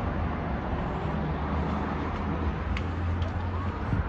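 Steady low rumble of road traffic, with two faint clicks a little under three seconds in.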